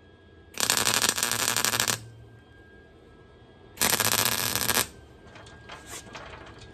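Wire-feed welder arcing in two crackling bursts, the first about a second and a half long, the second about a second, with a few faint pops after. It sounds horrible because the wire feed is set too fast.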